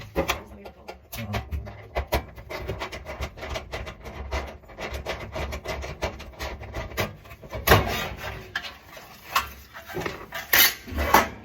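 Hands and tools working on a dryer's heater assembly: irregular clicks, knocks and scraping of metal parts as the heater cord is taken off, with the loudest knocks a little over halfway through and near the end.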